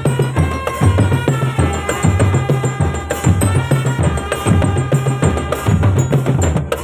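Marching drum band playing: dense snare and tenor drum strokes over a regular bass drum beat, with a pitched melody line carried on top.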